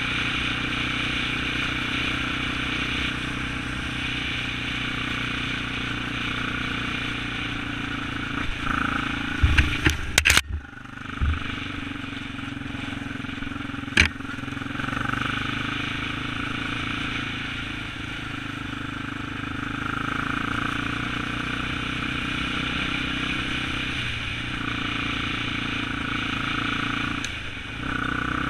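ATV engine running steadily while being ridden, its note rising and falling slightly with the throttle. A cluster of sharp knocks comes about ten seconds in, and another single knock a few seconds later.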